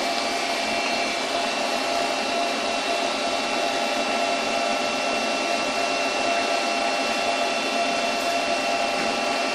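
Steady whirring machine hum of a Doosan CNC lathe idling with its spindle stopped, a constant mechanical drone with several fixed tones and no change in level.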